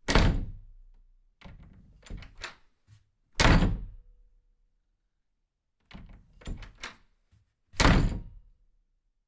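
Three heavy thuds about four seconds apart, each one followed by a run of lighter knocks and taps.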